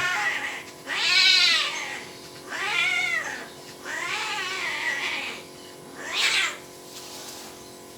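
Cats caterwauling: about five drawn-out yowls, each up to a second or more long, wavering up and down in pitch, the yowling of cats mating.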